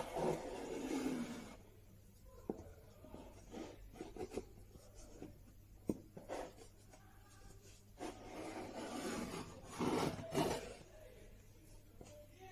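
Hand scraping and rubbing on wood, in two longer stretches with a few sharp clicks and knocks between them.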